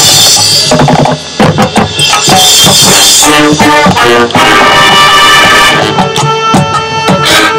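High school marching band playing loudly: brass holding chords over drumline and front-ensemble percussion, with bursts of sharp drum hits about a second in and again near the end.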